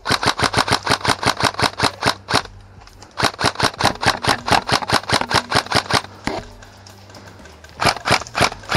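Airsoft electric rifle firing on full auto in rapid strings of about eight shots a second. Two long strings with a short pause between, then a single shot and a lull of over a second before the firing starts again near the end.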